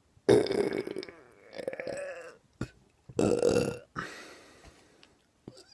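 A man burping three times in a row, long and loud, the first and last burps the strongest.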